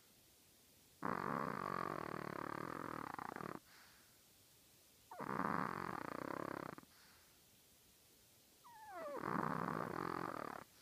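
A tiny chihuahua snoring loudly: three snores about two seconds long, a second and a half or so apart, the last opening with a short falling whistle.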